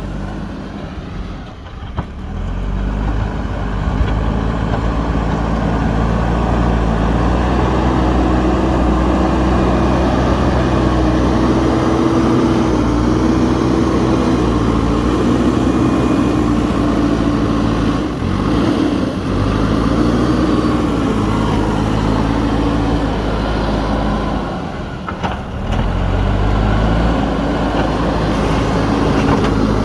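JCB 3DX backhoe loader's diesel engine running steadily at work, its note wavering up and down. The level dips briefly three times.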